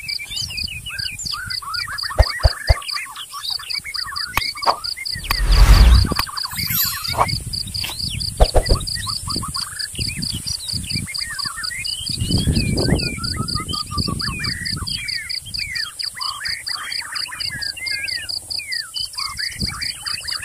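Many birds chirping in quick sweeping calls over a rapid, even pulsing high call, like an insect's. A loud low rumble, the loudest sound, comes about six seconds in, and a softer one near the middle.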